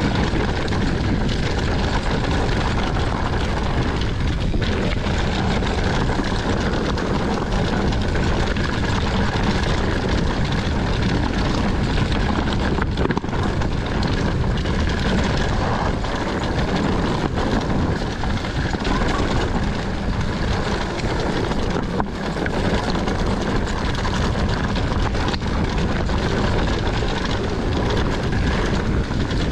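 Steady rush of wind on the microphone during a fast mountain-bike descent, mixed with the noise of the tyres rolling over a dry dirt and rock trail.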